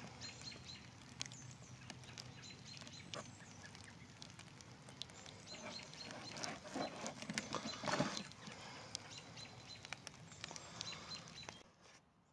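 Outdoor ambience with small birds chirping now and then, and scattered clicks and rustles of pliers and thin wire being handled close to the microphone, loudest about eight seconds in. The sound drops away suddenly near the end.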